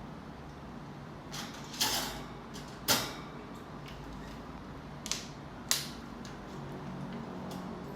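A few sharp mechanical clicks and knocks, about four of them, the loudest about three seconds in, over a steady low hum.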